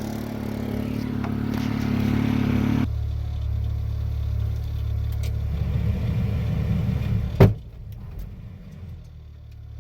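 A steady engine hum, then about seven and a half seconds in a single loud pop as a lead-acid battery in the excavator explodes and blows its top off. The explosion comes from charging fumes on top of the battery, which the owner believes a spark from a bad battery post set off.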